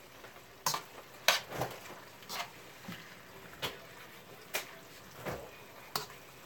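Metal tongs clicking and scraping against a wok as diced chicken is stir-fried, in irregular strikes about once a second over a faint frying sizzle.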